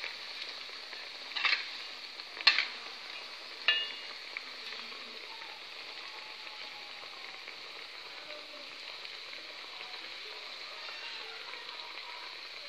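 Potato fritters deep-frying in hot oil in a wok, a steady sizzle. A spatula knocks against the wok three times in the first four seconds.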